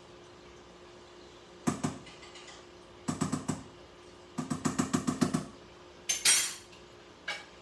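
A wooden spoon knocks and clacks against a metal stockpot as red pepper paste is worked into the soup and stirred. It comes in short clusters of taps, the longest a quick run of knocks in the middle, then a brief scrape near the end.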